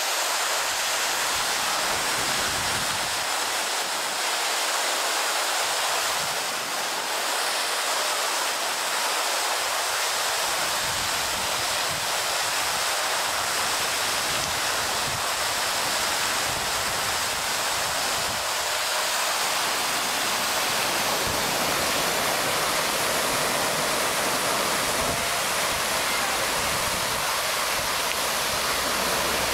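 A tall jet fountain shooting water high into the air, its spray falling back and splashing into the pond: a steady, unbroken rush of falling water.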